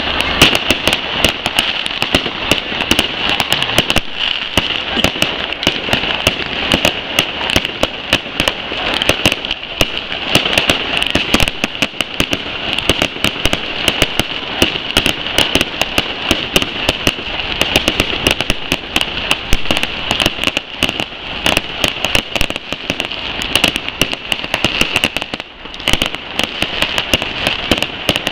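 Fireworks display: aerial shells and crackling effects going off in a dense, unbroken barrage of rapid bangs and crackles, easing off only briefly near the end.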